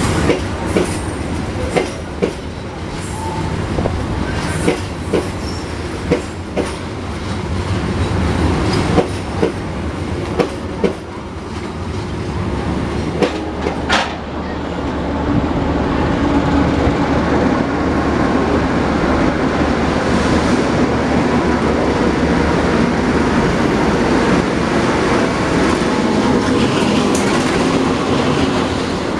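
Passenger train running on the rails, its wheels clacking sharply and irregularly over rail joints through the first half. About halfway through it settles into a steadier, louder rumble.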